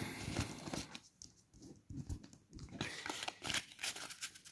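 A stack of Pokémon trading cards being gathered up and squared by hand: a soft papery rustle, then a run of light irregular clicks and taps as the cards knock together.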